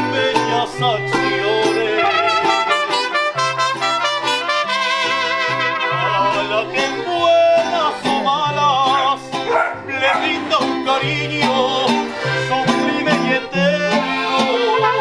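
Mariachi band playing, with strummed vihuela and plucked guitarrón under wavering melody lines.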